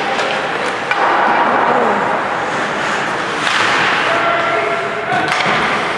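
Ice hockey play: skates scraping on the ice, with a couple of sharp clacks of stick on puck or boards, about a second in and near the end. Players and spectators call out over it.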